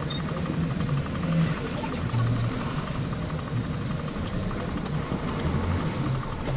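Engine and road noise of a Mercedes Sprinter van's diesel, heard from inside the cab as it moves slowly through town traffic: a steady low rumble.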